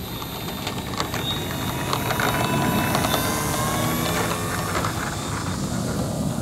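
Electric motor and propeller of an OMP Super Decathlon RC plane whining at takeoff power, the pitch rising slowly as the plane accelerates down the runway.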